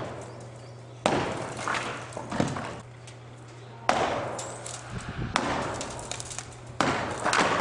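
Sledgehammer blows against the base of a wooden stave silo, four heavy strikes about a second and a half apart, each followed by a short crackle of breaking wood. The blows are knocking out the silo's base to bring the tower down.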